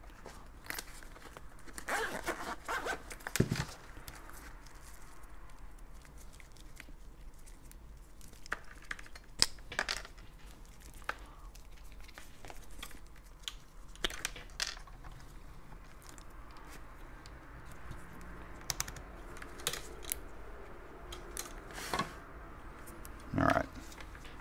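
Handling noise as a multimeter is unzipped from its soft case and its test leads are laid out: scattered rustles and crinkling, with light clicks and knocks, busiest about two to three seconds in and again near the end.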